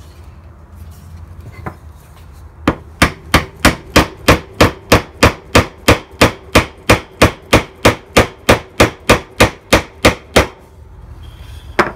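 A wooden dowel knocked down repeatedly by hand into a drilled hole in a wooden rocker, a run of sharp, evenly spaced knocks, about three a second, starting a little over two seconds in and stopping near the end.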